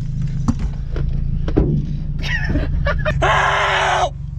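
Nissan Hardbody pickup's engine idling, a low steady rumble heard inside the cab. About three seconds in comes a loud, harsh burst of noise lasting about a second.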